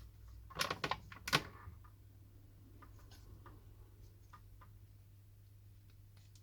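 A quick run of sharp clicks and taps about a second in, the last one the loudest, then a few faint scattered ticks: small plastic and glass phone parts handled and pressed together while a new digitizer is fitted to a smartphone. A steady low hum runs underneath.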